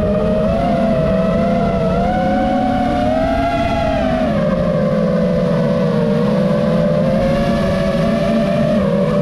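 FPV quadcopter's motors and propellers whining steadily in flight, the pitch rising a couple of seconds in and falling again with throttle, over a low rush of wind.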